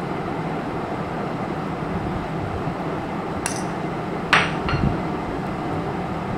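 Two sharp clinks a little past halfway, less than a second apart, from a metal spoon knocking against a dish, over a steady background hum.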